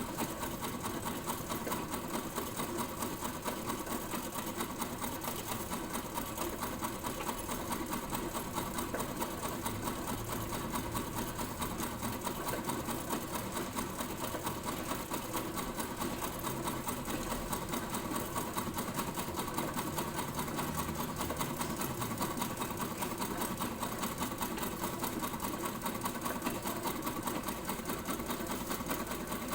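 Electric sewing machine running steadily at speed, its needle mechanism clattering in a fast, even stitching rhythm.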